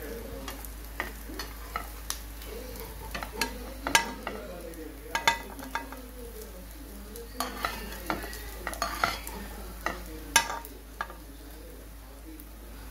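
Shami kebabs sizzling in shallow frying oil in a ceramic-lined pan, with a spatula scraping and clicking against the pan as the kebabs are lifted out; sharp clicks come every second or two, the loudest about four seconds in and near ten seconds in.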